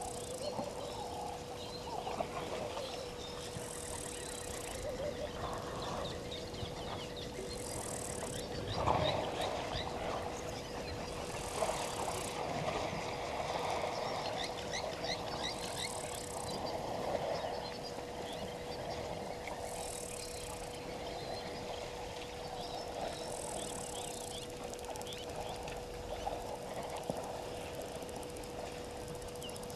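Bush ambience at a waterhole: many small birds chirping, a high buzzing call that repeats about every four seconds, and a faint steady hum underneath. There is one louder thud about nine seconds in.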